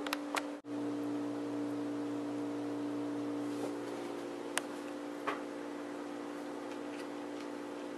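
A steady low hum with several pitched tones, and a few faint clicks of a metal fork as kiwi is eaten.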